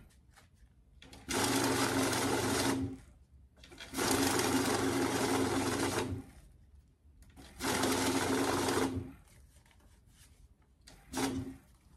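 Electronic banknote counter whirring as stacks of bills are run through it: three runs of about one and a half to two seconds each, starting about a second in, four seconds in and near eight seconds, then a short burst near the end.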